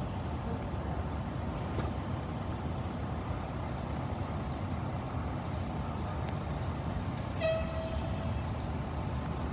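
Steady low rumble of idling vehicle engines, with a vehicle horn sounding once for about a second, about seven and a half seconds in.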